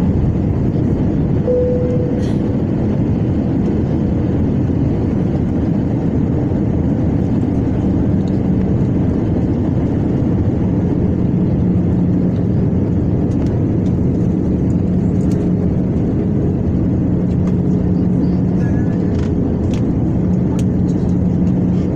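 Jet airliner cabin noise beside the engine during descent: a steady, dense rush of engine and airflow noise with a low steady hum.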